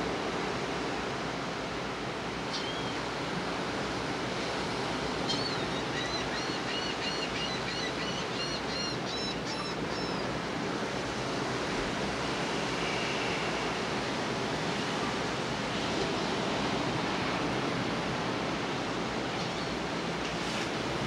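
Ocean surf washing onto the beach as a steady, even hiss. From about five seconds in, a bird calls a quick run of repeated high notes for several seconds.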